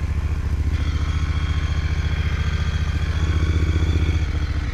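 Moto Guzzi transverse V-twin engine idling steadily as it warms up, getting a little louder for about a second about three seconds in.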